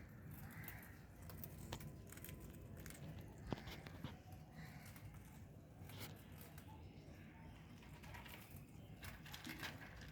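Faint, scattered crunching and clicking of parakeets biting food, with one sharper tick about three and a half seconds in.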